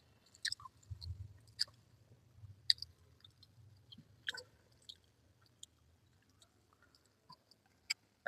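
Close-up chewing of a mouthful of rice and vegetables: wet mouth smacks and clicks at irregular intervals, with a faint low hum under them in the first few seconds.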